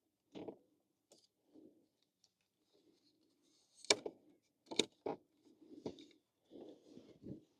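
Scattered light clicks and knocks with soft rustling, as of hand tools and parts being handled while an electric scooter is put back together. The sharpest clicks come about four seconds in and twice more about a second later.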